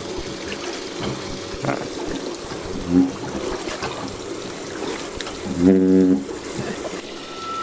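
Water trickling and splashing steadily into a shallow fountain pool. A brief voice sound is heard about six seconds in.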